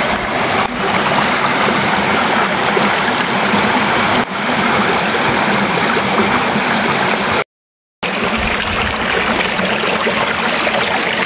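A small mountain stream rushing over rocks in a low cascade, a steady watery rush. It drops out completely for about half a second a little past the middle.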